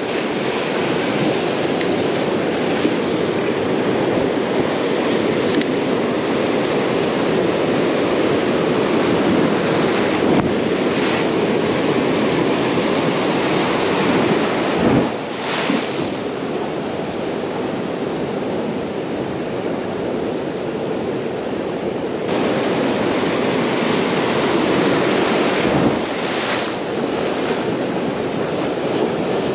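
Ocean surf washing and foaming over shoreline rocks close below, a steady rush of water.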